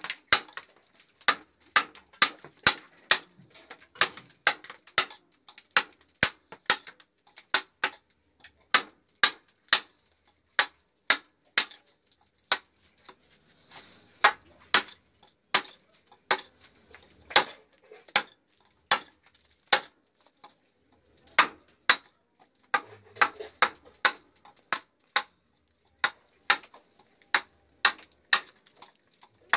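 Wood-carving chisel driven into a wooden block by repeated hammer blows: sharp, clinking knocks at roughly one to two a second, with a few brief pauses between runs of strokes.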